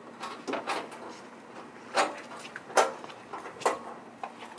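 Clunks and knocks of a removed car door and body panels being handled, a handful of sharp hits, the loudest about two and three seconds in.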